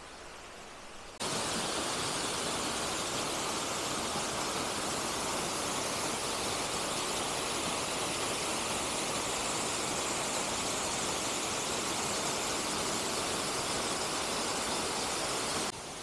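Hinanger Wasserfall's water falling, a steady rushing that cuts in about a second in and cuts off abruptly just before the end.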